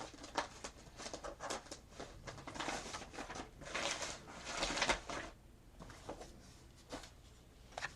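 Paper and craft materials being handled on a work table: rustling with scattered small clicks and taps, busiest in the middle and quieter near the end.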